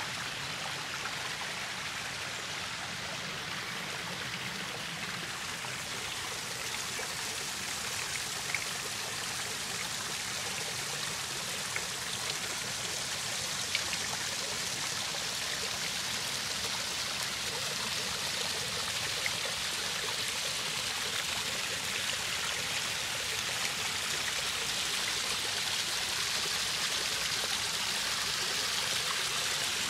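Backyard pond waterfall splashing over stacked stones into the pond, a steady rush of water that grows a little louder toward the end.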